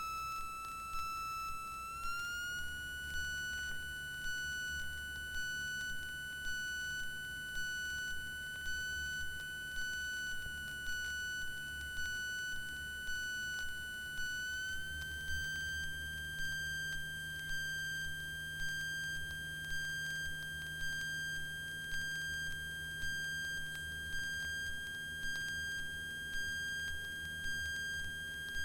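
A steady, high electrical whine in the Cessna 172's headset intercom audio. It steps up in pitch about two seconds in and again about halfway, and a soft tick repeats about once a second. Underneath is the low drone of the engine.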